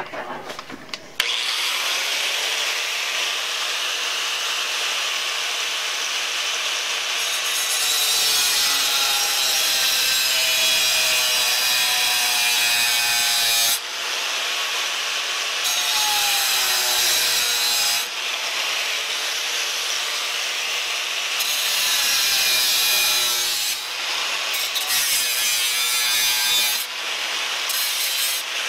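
Hand-held electric angle grinder switched on about a second in, then grinding a steel knife blank clamped in a vise. The sound steps louder and softer several times as the disc is pressed onto the steel and eased off.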